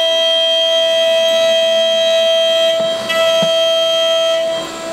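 CNC-4040 milling machine's spindle, run at 330 Hz with a 6 mm two-flute end mill, face-milling an aluminium plate: a steady, high-pitched whine with overtones. It dips briefly about three seconds in and again near the end.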